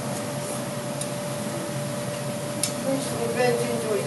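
Steady hum and background noise of a working chainmaker's forge, with a couple of light metal clinks and faint voices near the end.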